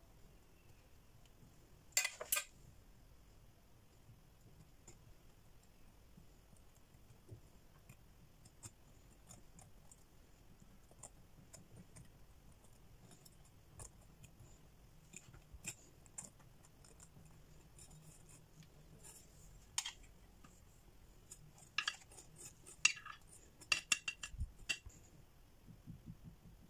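A spoon and spatula clicking and tapping against the baking dish while chocolate ganache is spread over brownies. There is a sharp double click about two seconds in, scattered light ticks after it, and a quick run of clicks near the end.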